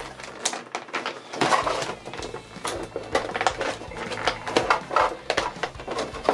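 Clear plastic blister packaging being handled and pulled open, with irregular crackling and clicking.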